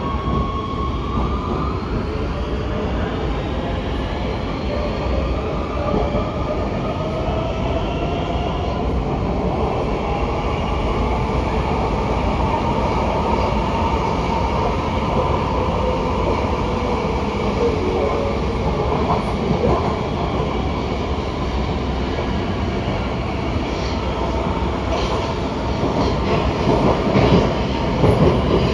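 Oslo Metro MX3000 train running through a tunnel, heard from inside the car: a steady rumble of wheels on rail under the whine of the traction motors, which glides upward in pitch over the first several seconds as the train picks up speed and then holds. A few louder knocks and clatters come near the end.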